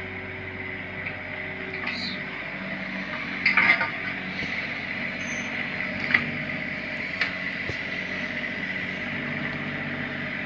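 Bobcat 322 mini excavator running steadily with a high hydraulic whine, with a few sharp metallic clanks from the bucket and arm, the loudest a short cluster about three and a half seconds in.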